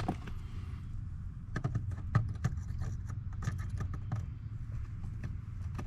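Irregular light plastic clicks and taps as relays are handled and pulled in a car's relay box, over a low steady rumble.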